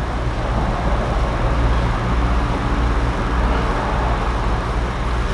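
Steady low rumble with a constant hum, with no clear events in it.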